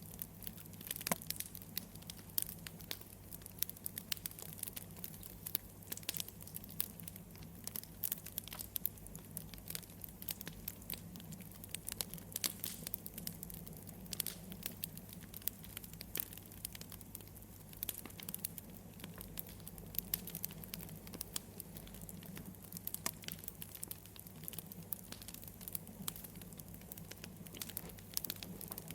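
Wood fire crackling: a dense, irregular run of small pops and snaps over a steady low hum.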